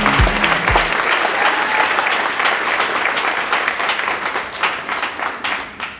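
Audience applauding, many hands clapping at once. A thumping beat of intro music ends about a second in, and the clapping thins out and fades near the end.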